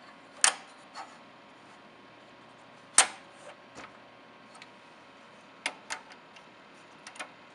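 Irregular sharp mechanical clicks, the loudest about three seconds in, as the output toggle switches on an Andover Controls AC256M controller are flipped and its plug-in relays switch. The board is working as it should.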